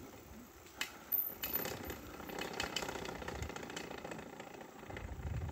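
Bicycle being ridden over a tarmac path, rattling and clicking irregularly from about a second in as it jolts over the surface; a low rumble comes in near the end.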